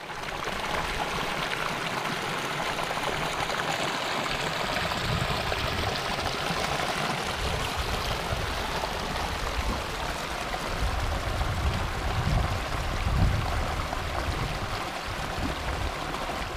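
Shallow mountain stream running over rocks and stones: a steady rush of water. A low, uneven rumble comes and goes in the second half.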